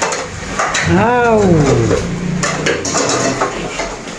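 Metal utensils clinking against pots and dishes as the cooked biryani is handled, with a person's voice in one long rising-then-falling call about a second in.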